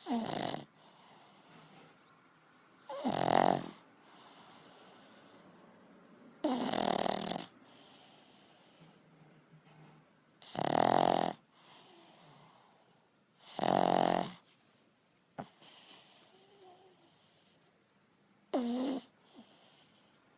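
A pug snoring in deep sleep: six loud snores, one roughly every three to four seconds, with quieter breathing between them.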